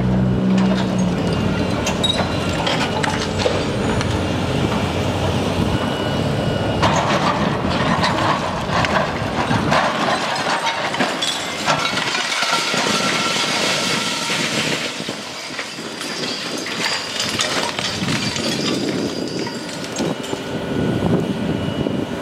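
Demolition excavator breaking apart a brick building's glass-block wall: continuous crunching, cracking and clattering of glass block, brick and concrete breaking and falling. A low engine hum fades out about a second in.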